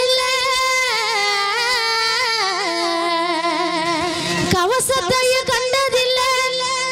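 Woman singing a Tamil folk song into a microphone, her voice wavering with heavy vibrato as it slides down through a long held phrase and climbs back up about four and a half seconds in. A steady low tone sits beneath, and percussive beats come in near the end.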